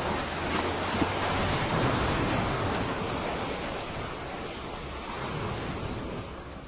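A surf-like rushing sound effect that swells about a second in, then eases and fades out near the end.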